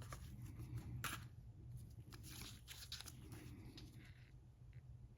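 Faint handling noises: a sharp click about a second in, then light rustling and a few small ticks, over a low steady hum.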